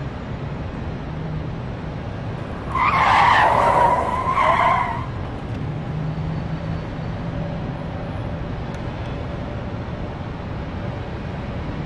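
A car's tyres squealing for about two seconds, a few seconds in, over a steady low vehicle rumble.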